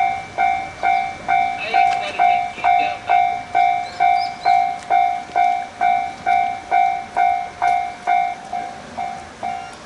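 Japanese railway level-crossing warning bell ringing in an even rhythm of about two strikes a second, warning that a train is approaching.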